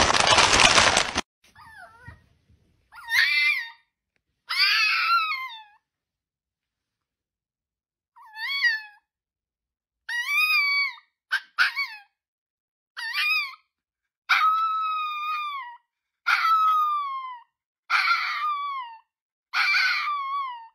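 A crisp packet crinkles loudly for about the first second. Then a white Pomeranian howls in a run of about ten high, drawn-out calls, each arching up and falling away in pitch, with short silences between them.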